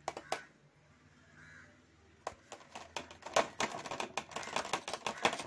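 Knife cutting a steamed corn-semolina cake in an idli-steamer tray, its edge clicking and scraping against the metal tray in quick taps: a couple at the start, then a dense run from about two seconds in.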